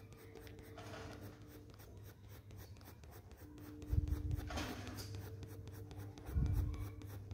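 Colour pencil scratching faintly on drawing paper in repeated shading strokes, worked from the top of a rose petal downward. Two low thumps stand out, about four and six and a half seconds in.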